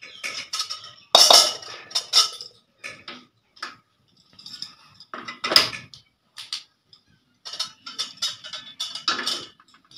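Steel cookware and utensils clattering and clinking as they are handled and set down, with sharp clicks as a gas stove burner is lit. The loudest knocks come about a second in, halfway through and near the end.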